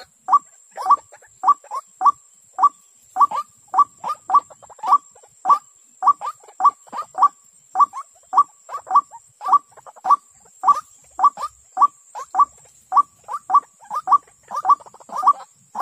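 White-breasted waterhen calling: short, harsh, rising notes repeated about two to three times a second in a steady run, with a faint steady high-pitched whine underneath.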